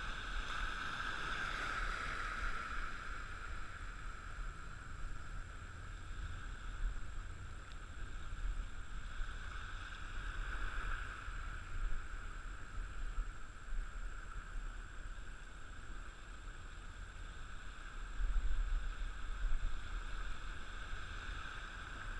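Steady wash of shallow seawater around the wading angler, with wind rumbling on the head-mounted camera's microphone and a few stronger gusts near the end.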